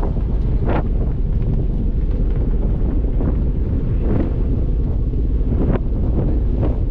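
Wind buffeting the microphone in gusts over the steady low rumble of a ferry underway.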